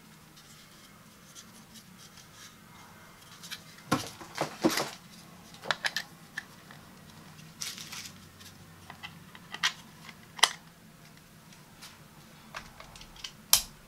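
Plastic clicks and knocks from handling small plug-in LED night lights and pushing their prongs into a plastic multi-outlet adapter: a cluster of sharp clicks about four to six seconds in, then single louder ones about ten and thirteen and a half seconds in.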